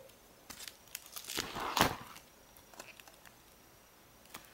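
Plastic pages of a card binder crinkling and rustling as a page is turned, loudest about a second and a half in, with a few light clicks around it.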